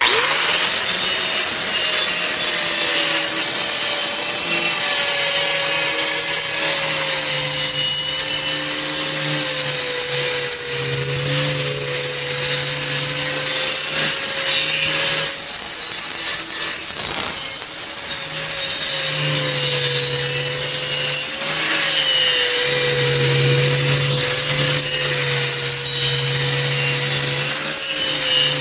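Angle grinder running steadily with its disc face held flat against the steel edge of a hydraulic splitting-axe blade, grinding the edge to sharpen it. The motor's whine wavers slightly as the pressure on the steel changes.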